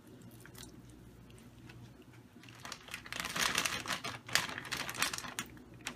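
A plastic shredded-cheese bag crinkling as it is handled. The crinkling starts about halfway in and comes in quick, crackly bursts.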